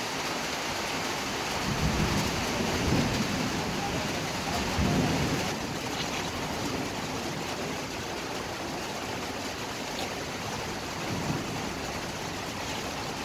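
Steady rushing noise of a large pot of rosogollas cooking in sugar syrup over a burner, with low rumbling swells about two to three seconds in and again near five seconds.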